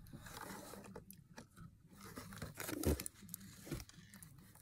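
A child chewing a gritty mouthful from a sugar-scrub kit, with small irregular crunches close to the microphone and one louder knock about three seconds in.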